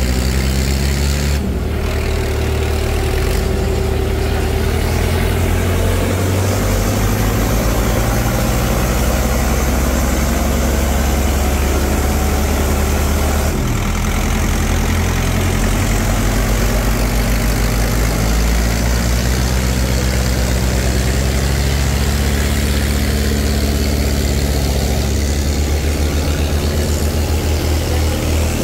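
Tractor diesel engines running loud and heavy, their engine speed shifting up and down several times.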